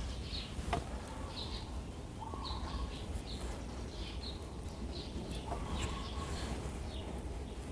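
A bird chirping repeatedly in the background, a short high chirp about once a second, over a steady low hum. There is a single sharp click about a second in.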